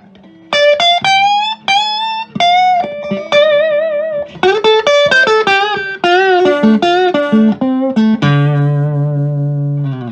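Fender Big Apple Stratocaster played through a home-built Fender Tweed Pro clone amp with four 8-inch speakers, with the pickup selector in its second position, which is thought to split off one coil of each humbucker. It plays single-note lead lines with string bends and vibrato, then strikes a chord about eight seconds in and lets it ring until it is cut short just before the end.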